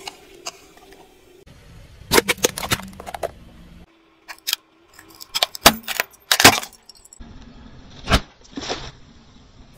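Brittle objects cracking and crunching under a car tyre: clusters of sharp snaps in several short cut-together takes. The loudest cracks come about two seconds in, around six and a half seconds, and just after eight seconds.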